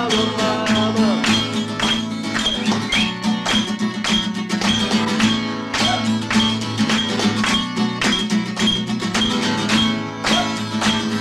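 Background music: a plucked guitar over a steady beat.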